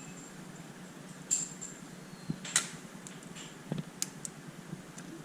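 Sharp metallic clicks and clinks of hand tools and metal parts being handled on a torque tool, four or five separate knocks with a slight ring, over a faint steady hum.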